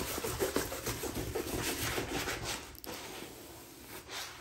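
Rustling of a soft tarpaulin diamond-painting canvas, with its plastic cover sheet, as it is rolled backwards by hand to flatten out its curl; the rustling eases off about three seconds in.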